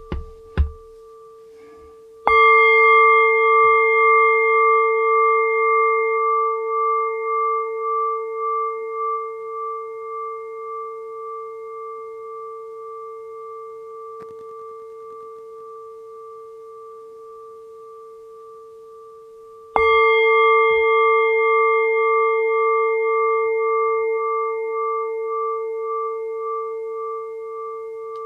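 A meditation bell struck twice, about seventeen seconds apart; each strike rings a clear tone with several overtones that fades slowly with a steady wavering pulse. A few short knocks in the first second.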